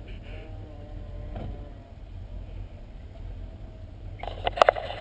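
Range Rover 3.9's V8 engine running at a distance with a steady low rumble. About four seconds in, a short loud burst sounds close to the microphone.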